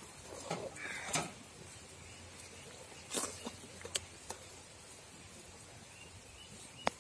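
Metal slotted spatula stirring through lemon-juice tempering in a steel kadai, with a few quiet scattered scrapes and knocks and a sharp click near the end.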